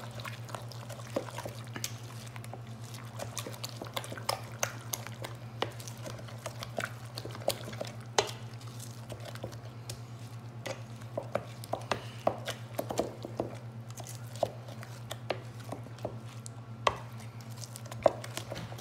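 Metal spoon stirring a thick mayonnaise-based dip in a stainless steel mixing bowl: irregular clinks and scrapes of the spoon against the bowl, a few of them sharper and louder. A steady low hum runs underneath.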